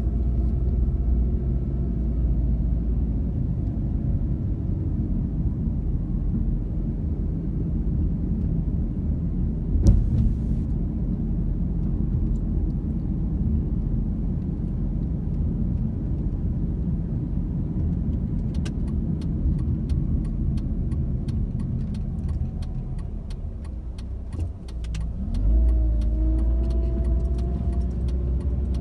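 Car engine and tyre noise heard from inside the cabin while driving slowly through residential streets. There is a single thump about ten seconds in, light ticking in the second half, and near the end the engine note rises as the car speeds up again.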